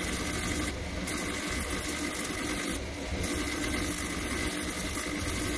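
Water-fed Diamond Pacific lapidary grinder running, with a fine-grit wheel turning under a trickle of water while a small prophecy stone (limonite and hematite) is held against it and sanded. The grinding turns briefly brighter and hissier twice, about a second in and about three seconds in.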